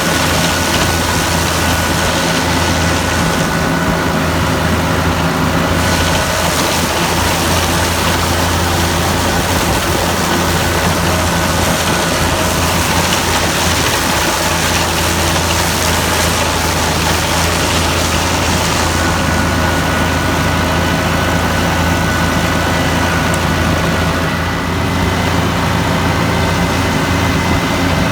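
Farm tractor engine running at a steady speed, with a faint steady high whine over the low drone.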